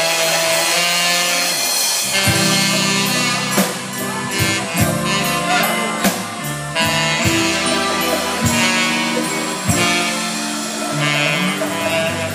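Live band playing a slow instrumental intro: saxophones over bass guitar and drums. The bass and drums come in about two seconds in, with a drum hit about every second and a bit.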